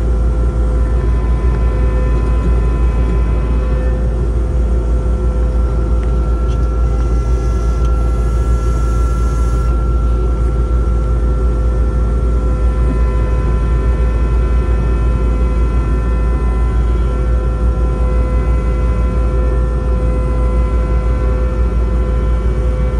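Skid steer engine running steadily, heard from inside the cab: a loud, even low rumble with a steady whine over it. A brief soft hiss comes about seven to nine and a half seconds in.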